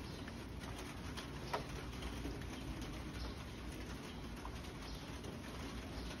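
Steady rain falling outside an open screen door, with light pattering and scattered drips. There is one brief sharp sound about a second and a half in.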